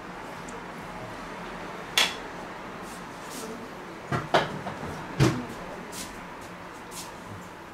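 A few sharp knocks and clatters of kitchen things being handled: one about two seconds in, then a quick cluster a little past the middle, over a steady low hum.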